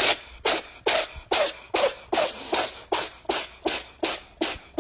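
A cat sneezing over and over in a rapid fit, a dozen or so short, sharp sneezes at about two or three a second.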